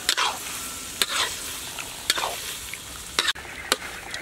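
Sliced pig liver stir-frying with garlic and chilies, sizzling steadily in a hot pan while a metal spatula scrapes and turns it about once a second.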